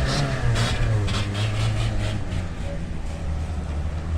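Small four-cylinder car engine of a 1.0 Fiat Palio running with a steady low drone, its exhaust fitted with a PVC sink drain trap to make it sound like a turbo; the note eases off slightly midway.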